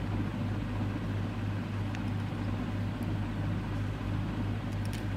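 Steady low background hum, with a couple of faint clicks.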